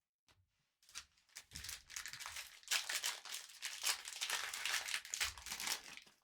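Crinkling and tearing of a trading-card pack's foil wrapper as it is ripped open, a dense run of crackles that starts about a second in and stops near the end.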